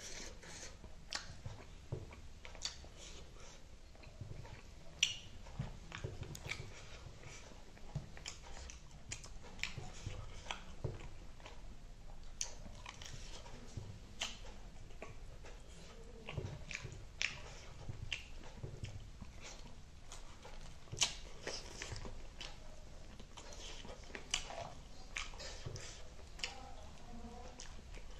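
A person chewing and smacking while eating chicken wings and rice by hand: an irregular run of short mouth clicks and smacks.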